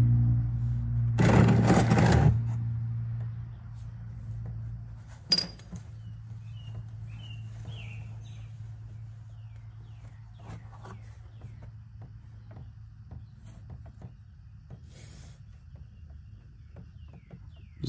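Oil filter wrench rasping against a spin-on oil filter as the filter is turned loose by hand: one loud scrape about a second in, then a single sharp click, over a low steady hum that fades away.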